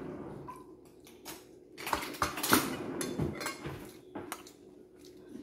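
Metal spoon clinking and scraping against a ceramic soup bowl and plate, a run of light knocks that is busiest and loudest about two to three and a half seconds in.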